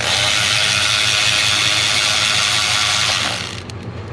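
Cordless electric ratchet running continuously, spinning out a 12 mm bolt, then stopping about three seconds in.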